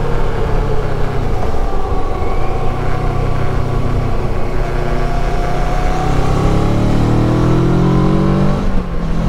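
Kawasaki Versys 650's 649 cc parallel-twin engine pulling under way with wind rush on the microphone. Its note rises steadily through the second half as the bike accelerates, dips briefly near the end, then picks up again at a lower pitch.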